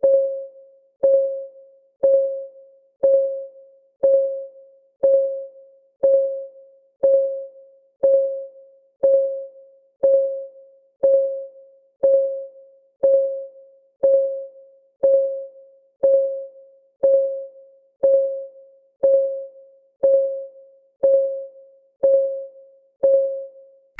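Clock-ticking sound effect of a countdown timer, one tick per second, each tick a short pitched tock that rings briefly and dies away, marking off the last seconds before the timer's alarm.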